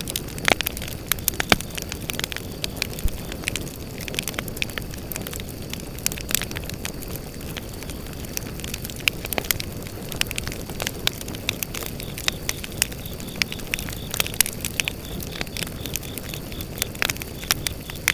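Firewood burning in a campfire, crackling and popping irregularly over a low rush of flame. Faint steady chirring of grass insects runs in the background.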